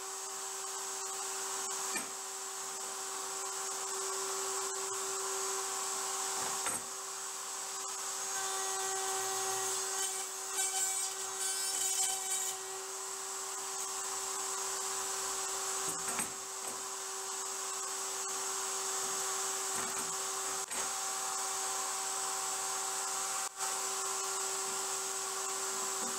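Router spinning in a CNC router table with a steady high whine while a board is pushed across the bit for successive dado passes. A few sharp knocks come as the board and push block are handled, and there is a rougher, uneven stretch about ten seconds in.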